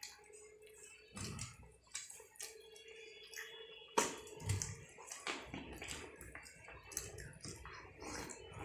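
Light clicks and taps of a spoon and fingers against a steel bowl as a small child eats, with one sharper clink about four seconds in.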